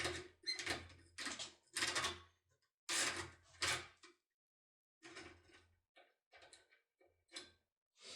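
Metal scraping and clicking of a locksmith tool being handled in a door lock cylinder: a run of short scrapes in the first half, then lighter, shorter clicks.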